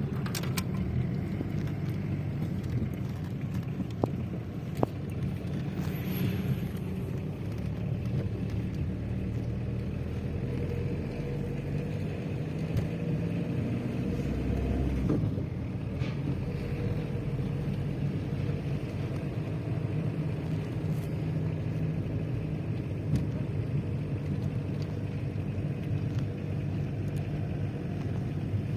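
Steady low rumble of a moving car's engine and road noise.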